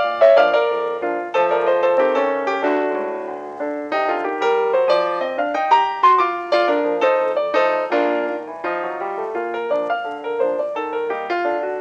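Piano music accompanying a silent film, a brisk run of quick notes with chords underneath.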